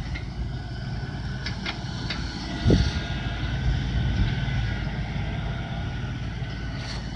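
LS XR4155H 55 hp tractor's diesel engine running steadily while snow is cleared, with a few light clicks and one short knock about two and a half seconds in.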